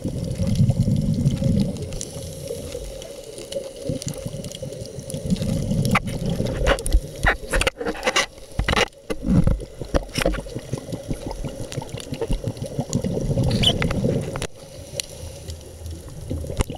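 Scuba diver's exhaled bubbles from the regulator, heard underwater, bubbling in three bursts a few seconds apart. A run of sharp clicks and knocks comes in the middle.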